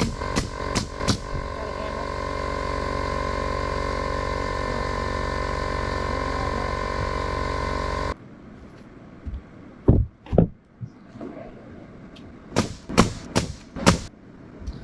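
Steady machine hum with a few sharp knocks; the hum cuts off abruptly about eight seconds in, and several more scattered sharp knocks follow.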